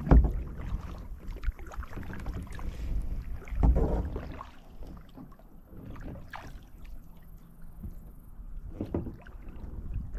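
Kayak paddling on calm water: water splashing and lapping at the hull, with a few paddle strokes a couple of seconds apart over a low rumble.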